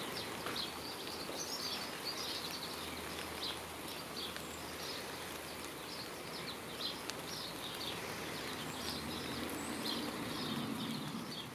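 Small garden birds chirping and calling again and again over a steady, faint outdoor background hiss.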